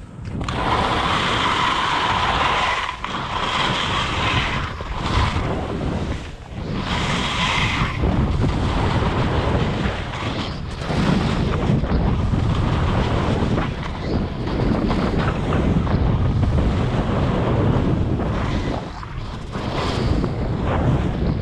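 Skis sliding and scraping over firm, wind-scoured snow during a downhill run, with heavy wind buffeting the microphone. A hiss is strongest over the first several seconds, then a lower wind rumble takes over.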